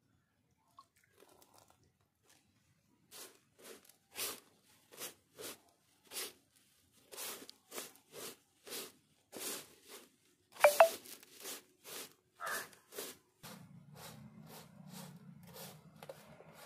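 Hands mixing a dry, flaky mixture with lumps of jaggery on an aluminium plate: a run of short crunching, scraping strokes, about two a second, with one louder stroke that rings briefly around the middle. Near the end a steady low hum comes in under fainter strokes.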